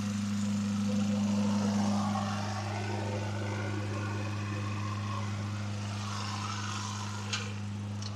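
Murray 10-30 riding lawn mower's engine running at a steady speed, with a brief click about seven seconds in.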